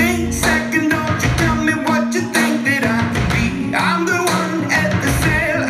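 A song with a singer, guitar and a beat, played back loud through a pair of Amate N12 loudspeakers.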